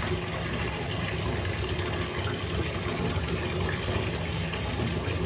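Steady rush of running water, like a tap left running, holding at an even level throughout.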